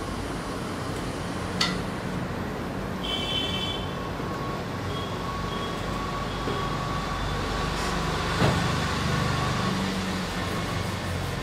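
Hot air rework station blowing steadily, heating a RAM chip stacked on a phone CPU so that its solder balls reflow and it settles into place. Two sharp clicks, about one and a half seconds in and again near eight and a half seconds.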